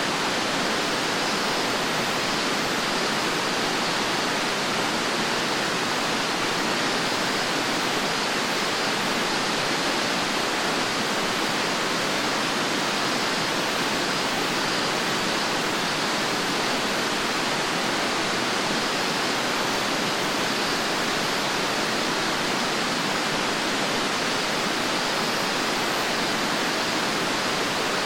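Fukuroda Falls, a large four-tiered waterfall, with water rushing down in one steady, unchanging noise.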